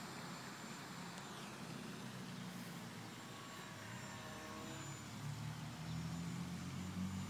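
Small RC flying wing's motor and propeller buzzing as it flies past overhead, with a slight shift in pitch as it passes and getting louder from about two-thirds of the way in as it comes closer.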